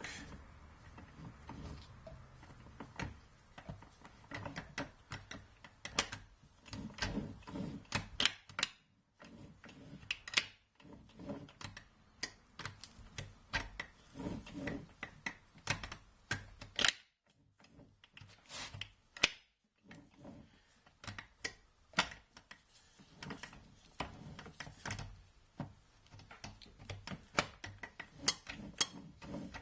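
Irregular metallic clicks and knocks from hands working on a BE4 manual gearbox on a workbench, in a small room. Sharp ticks come in quick clusters between louder single knocks.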